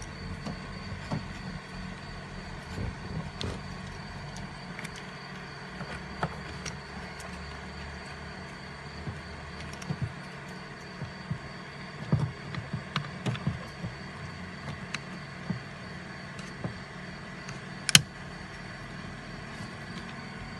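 Repair work noises: scattered short clicks and knocks, as of tools and parts being handled, over a steady low hum, with one sharp loud click near the end.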